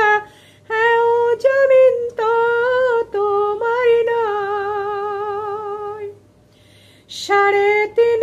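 A woman singing a Bengali Islamic ghazal unaccompanied, drawing out long held notes with vibrato. She breaks off for about a second near the end, then sings on.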